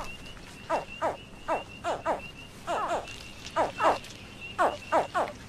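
American alligator hatchlings calling: about a dozen short, high chirps, each falling quickly in pitch, coming in an irregular string. These are the hatching calls that summon the mother to the nest. A faint, steady high-pitched pulsing runs behind them.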